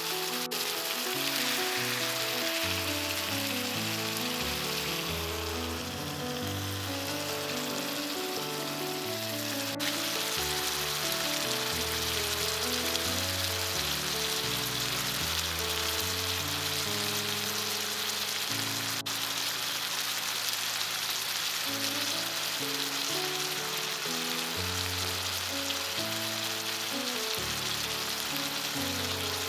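Food sizzling steadily in a frying pan, under background music.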